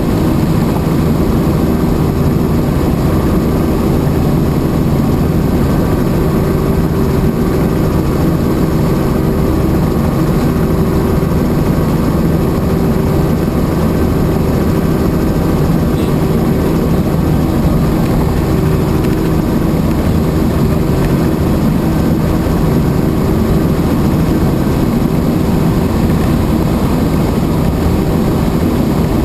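Helicopter engine and rotor running steadily: a loud, even drone with no change in pitch or level.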